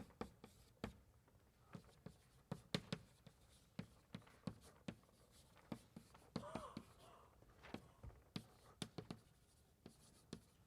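Chalk writing on a blackboard: faint, irregular taps and short strokes.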